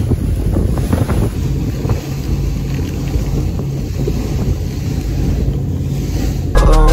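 Motorboat engine running at speed, with wind buffeting the microphone. Music cuts in near the end.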